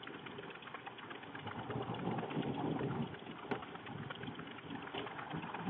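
Chalk writing on a blackboard: faint, irregular scratching and tapping strokes.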